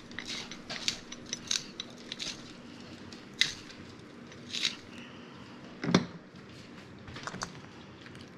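Salt grinder being twisted: a run of small crackling clicks, then sparser clicks, with one louder knock about six seconds in.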